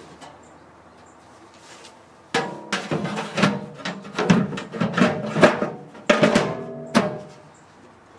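Aluminium hood being fitted over the beater roll of a Hollander beater: a run of metal clanks and knocks with a ringing after them, starting about two seconds in and stopping shortly before the end, over a faint steady hum.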